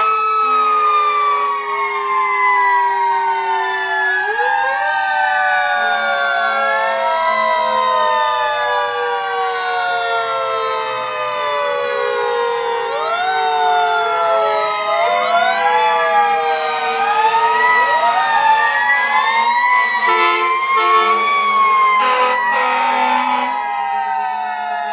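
Several fire trucks' sirens wailing at once, their rises and falls overlapping out of step. Short, low, steady horn tones break in now and then, more often in the second half.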